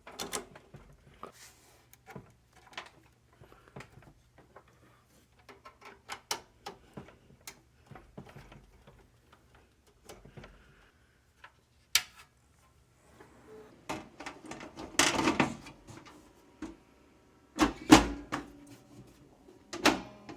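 Scattered clicks, knocks and rattles of computer hardware being handled and set in place, with a few heavier thumps about three-quarters of the way through and again near the end.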